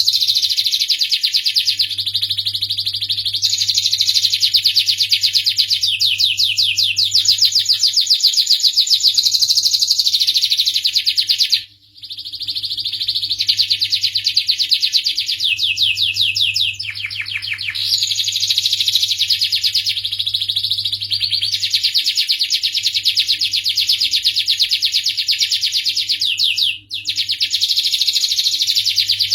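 Domestic canary singing a long, continuous song of fast trills. The song breaks off briefly twice, about twelve seconds in and near the end.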